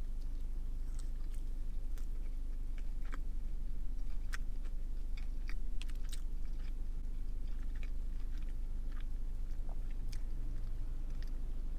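A person chewing a bite of a honey butter chicken biscuit with its fried chicken filling, close to the microphone: wet mouth sounds broken by many small crackles and clicks, over a steady low hum.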